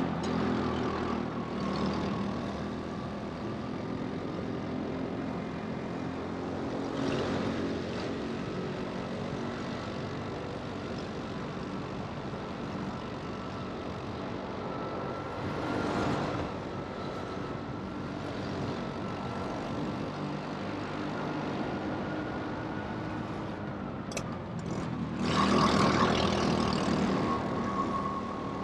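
Go-kart motor running steadily at race pace, a continuous motor note with a high whine over it. It swells louder a few times, most strongly about 25 seconds in.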